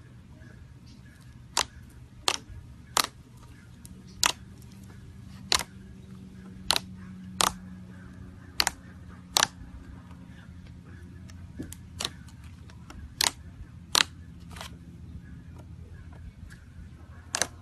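Slime being squeezed and poked, giving sharp, irregular clicking pops, about one a second.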